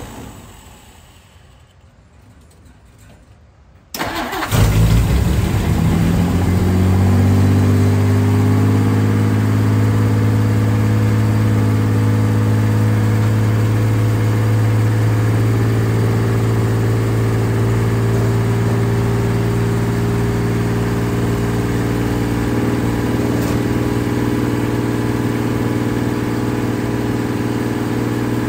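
A carburetted car engine starts about four seconds in after a quiet spell. It then runs steadily at idle, the revs easing down over the first few seconds before settling, with the idle screw freshly turned down.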